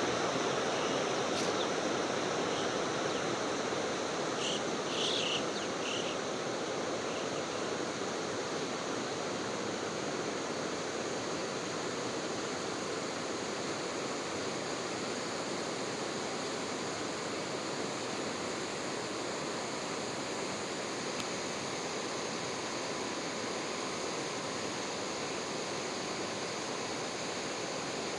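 Snowmelt water running and splashing in a steady, unbroken rush. A few brief high chirps come about five seconds in.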